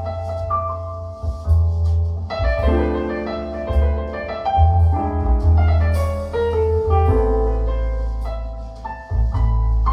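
Recorded piano music with a deep, continuous bass line and no singing, played back through Altec Lansing Valencia 846B loudspeakers with two SVS subwoofers.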